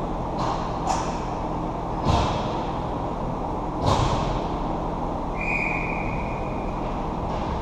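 Indoor ice-rink ambience with a steady hum. Skate scrapes and knocks come from the goalie moving in the crease right by the net, sharpest about two and four seconds in. A brief high steady tone sounds a little after the middle.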